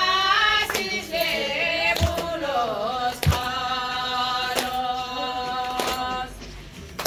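A song sung by a woman's voice, with long held notes and small gliding turns, and a few sharp beats, two of them with a low thump.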